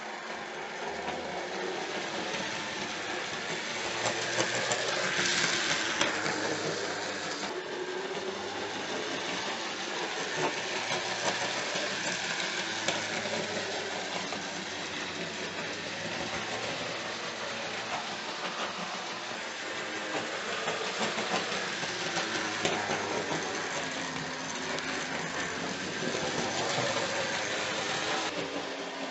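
Hornby OO gauge model goods train, a GWR 0-6-0 pannier tank locomotive hauling wagons, running steadily round the track: the small motor's hum together with the rattle of wheels on the rails.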